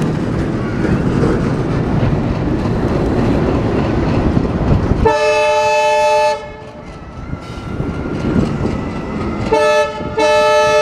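ALCO diesel locomotive hauling a freight train, its engine and wheels rumbling as it approaches, then sounding its horn: one blast about five seconds in lasting just over a second, a short toot near the end, and a longer blast starting just before the end.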